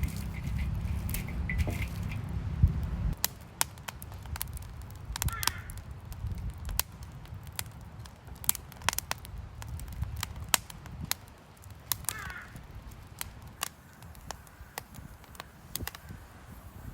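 Wood campfire crackling, with irregular sharp pops and snaps. A low rumble runs under it for the first few seconds.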